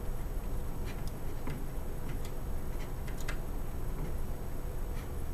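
Faint, irregular small metal clicks as a screwdriver tightens the screws of a deadbolt plunger in the door edge, over a steady low room rumble.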